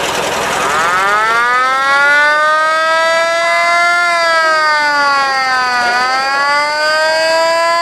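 A single long siren-like wail that climbs in pitch over the first second or two, holds, sags briefly about six seconds in and rises again.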